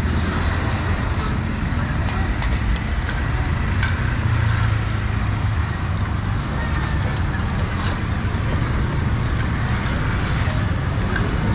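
Busy street ambience: a steady low rumble of motor traffic, with engines running nearby, over a background of voices and scattered short clicks and clatter.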